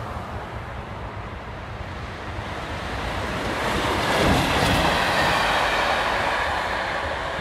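Class 37 diesel locomotive passing close by, hauling a coach, its noise building about halfway through and staying loud as it goes past, with wind buffeting the microphone.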